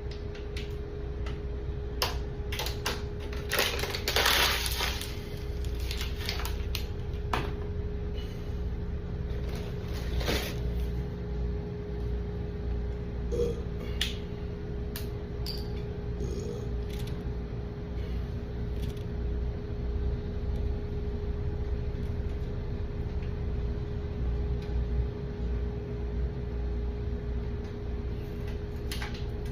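Scattered small clicks and clinks over a steady hum, with a short hissing burst about four seconds in.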